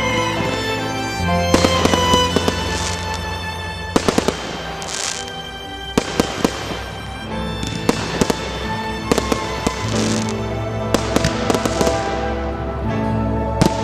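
Fireworks bursting and crackling over a music soundtrack, with bangs coming in clusters several times.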